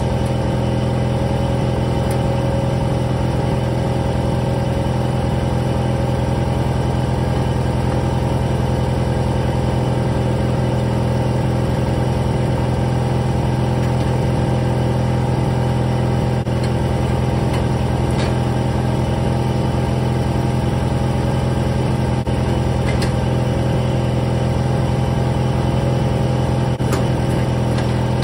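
John Deere riding lawn tractor's engine idling steadily, with no revving. A few faint clicks sound over it.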